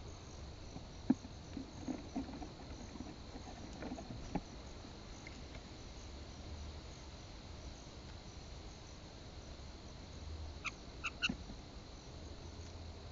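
A few light taps and knocks of a blue jay pecking at cereal, then three short bird chirps close together near the end, over a steady high-pitched chorus of insects.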